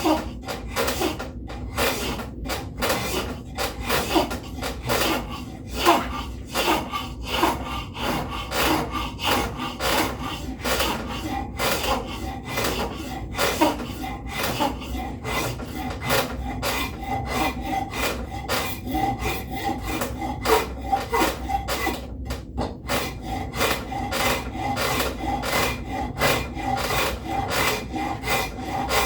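A large wood rasp filing a white oak axe handle: a steady run of quick, even scraping strokes, with one short pause about three-quarters of the way through.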